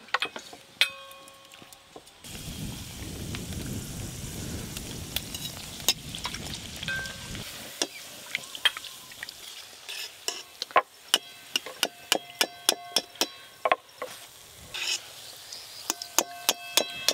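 A hing kachuri frying in hot oil in a steel kadai, sizzling for about five seconds. Then a slotted metal spoon clinks against the kadai many times, several taps leaving a short metallic ring.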